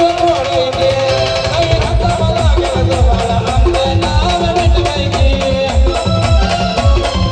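Maharashtrian brass band playing: a held, wavering melody line over a steady, fast drum beat.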